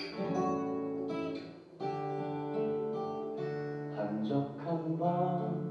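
Acoustic guitar playing a song's opening: chords sounded one after another with the notes left to ring, and a brief drop-off about a second and a half in before the next chord.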